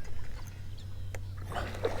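Water splashing and trickling around a kayak, starting about one and a half seconds in, over a steady low hum. A single sharp click comes a little before it.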